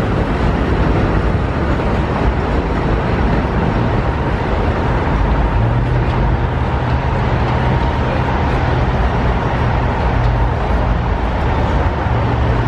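Steady city street traffic noise, with a deeper engine hum joining about six seconds in.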